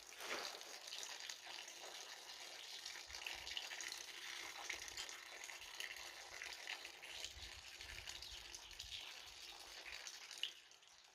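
Water running steadily from a tap being tested, a soft hiss that drops away near the end just after a brief knock.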